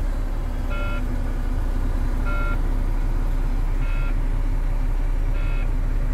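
Diesel truck engine idling steadily just after start-up, with a cab warning beep sounding four times, about every second and a half. The beep is the low air pressure alarm, going while the air brake system builds pressure.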